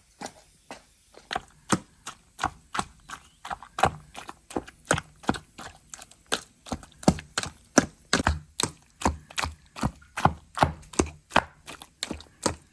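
Pestle pounding roasted chilies, garlic, salt and soy sauce in a mortar: a steady run of uneven knocks, about two or three a second, mashing them toward a paste.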